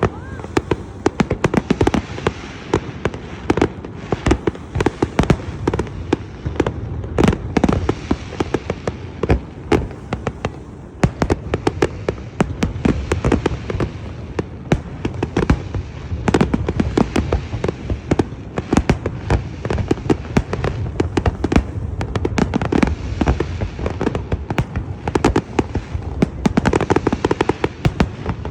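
Fireworks display: a dense, continuous barrage of bangs and crackling bursts, many a second, over a steady rumble.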